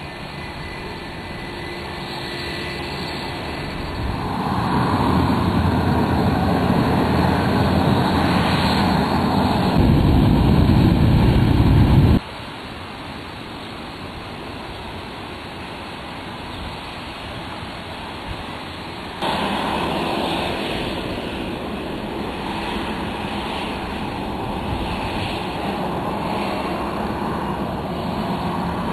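Jet airliners' engines running on the runway, a steady rushing noise. It swells to a loud, deep peak, cuts off suddenly about twelve seconds in, and then gives way to a quieter stretch. A second jet comes in abruptly about seven seconds later and holds steady.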